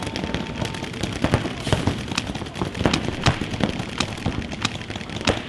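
Paintball markers firing in rapid, irregular strings of sharp pops.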